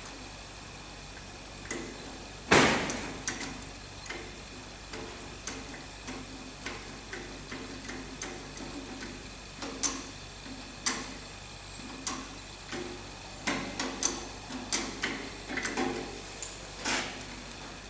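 Irregular light clicks and metal knocks of hand tools working on a tractor's throttle linkage, with one louder knock about two and a half seconds in and a busier run of clicks near the end.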